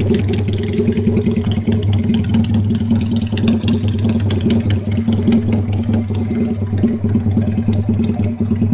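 Benelli Patagonian Eagle 250's 250cc two-cylinder engine idling steadily through an aftermarket free-flow exhaust, a loud, even exhaust note.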